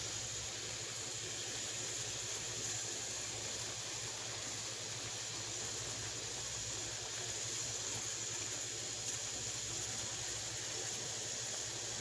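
Shrimp cooking in melted butter in a frying pan, giving a steady, even sizzling hiss.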